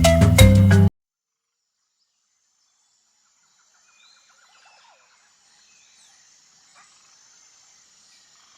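A marimba-style music sting cuts off about a second in. After a few seconds of silence, faint wild ambience fades in: birds chirping over a steady high insect hiss.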